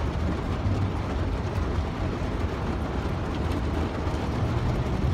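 Heavy rain on a car and its tyres running through floodwater, heard inside the cabin as a steady noise with a low rumble.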